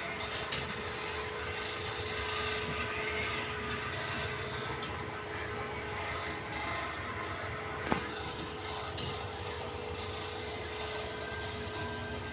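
Passenger train rolling slowly along a station platform, heard from inside the carriage: a steady rumble with a constant hum, and a single sharp click about eight seconds in.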